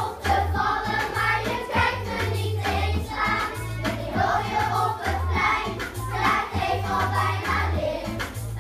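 A group of children singing a song together over an instrumental accompaniment with a steady bass line.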